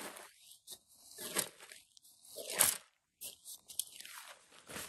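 Nylon fabric and a plastic tarp rustling and crinkling in several short bursts as rolled-up camping gear is unrolled and pulled open by hand.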